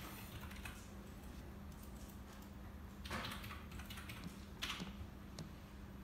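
Faint fingertip taps and brushes on a smartphone's touchscreen, a few light clicks with two louder brushing sounds about three and four and a half seconds in, over a steady low hum.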